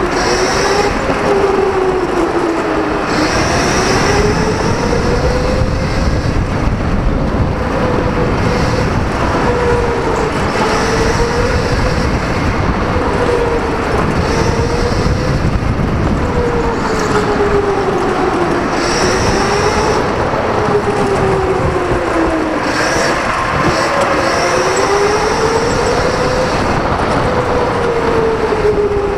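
Electric go-kart being driven hard around the track: the motor's whine rises and falls in pitch with speed through the straights and corners, over a steady rumble. A higher whine comes and goes every few seconds under acceleration.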